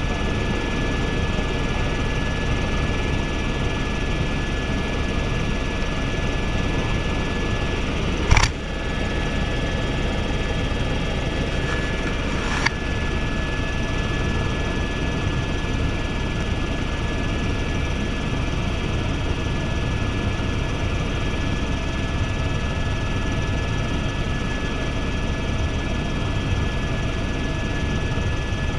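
Helicopter cabin noise in flight: a steady rumble of rotor and turbine engine with a constant high whine. A sharp knock comes about eight seconds in and a smaller click around twelve seconds.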